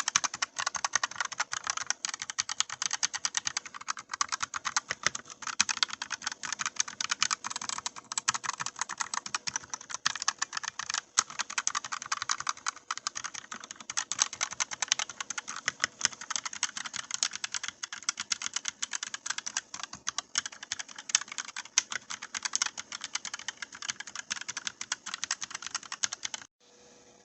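Continuous fast typing on a Redragon FIZZ K617 keyboard with magnetic switches: a dense stream of quick key clicks and clacks that stops abruptly near the end.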